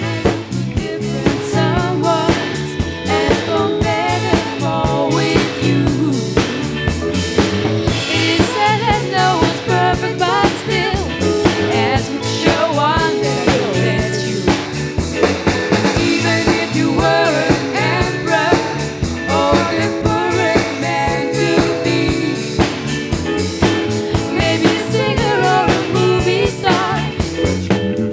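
A rock band playing live, with drum kit, bass and electric guitar, and a singer's voice over the top.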